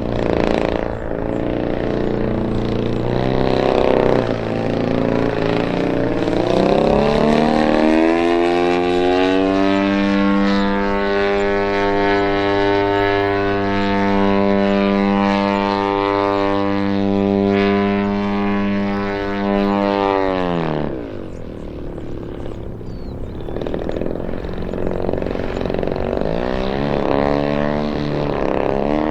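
Giant-scale RC Yak 54's 120cc DA two-stroke twin engine and propeller, the throttle varying at first, then rising to a steady high-pitched full-throttle run for about eleven seconds. It is sharply throttled back about two-thirds of the way through and then rises and falls again at part throttle.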